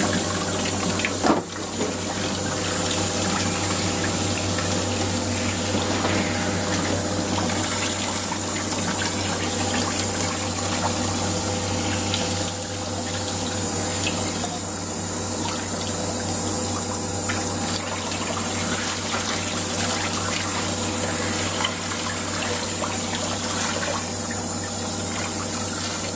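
Water running steadily from a hand-held shower hose onto a dog's wet coat during a bath, with a low steady hum underneath.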